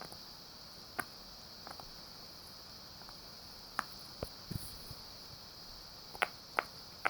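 Steady high-pitched trill of crickets, with scattered short clicks and taps over it, more of them near the end.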